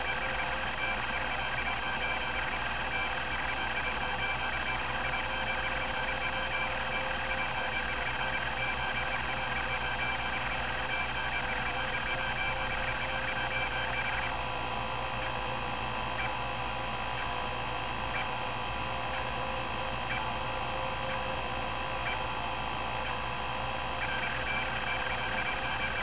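Epson-Seiko HD-860 20 MB MFM hard drive seeking nonstop during an access-time benchmark. Its stepper-driven rack-and-pinion head actuator buzzes and chatters over a steady whine. About halfway through the seek pattern changes to a slower, regular run of clicks, about one a second, then goes back to the denser chatter near the end.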